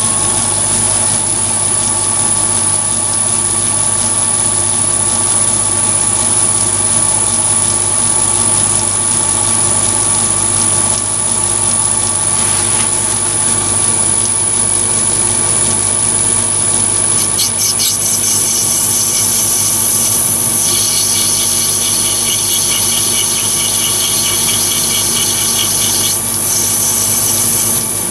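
Chinese mini lathe running with a steady motor whine while a round carbide insert profile tool cuts grooves into a spinning brass bar. A high, thin ringing from the cut joins in about two-thirds of the way through and drops out briefly near the end.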